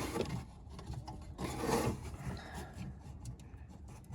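A hand rubbing and fumbling behind a car's headlight assembly, feeling for the bulb's retaining clip. Soft scraping with scattered small clicks, with a louder rub about a second and a half in.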